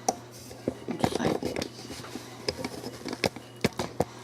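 Irregular sharp clicks and taps, with a short burst of crackling about a second in.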